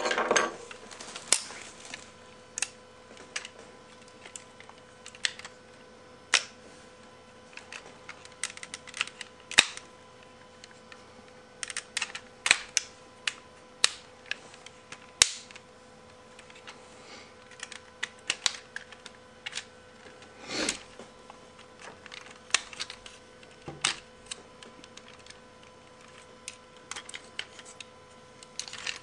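Plastic parts of a Takara D-98 reissue Transformers G1 Sixshot figure clicking and knocking as it is transformed by hand from jet mode. Irregular sharp clicks and snaps come every second or so, some louder than others.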